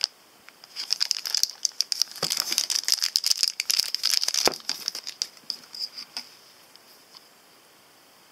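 Thin clear plastic bag crinkling as it is pulled off a camera battery by hand: a dense crackle for about four seconds that thins out and stops a little before the end.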